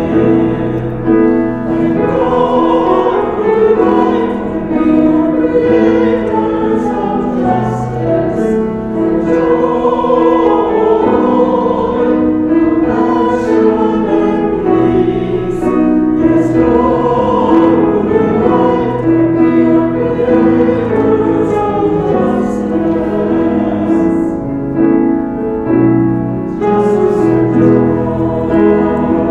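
A small church choir singing a hymn in parts, with piano accompaniment.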